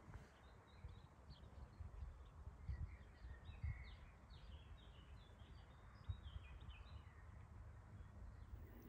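Near-silent open-field ambience: faint, scattered chirps of small songbirds over a faint low rumble.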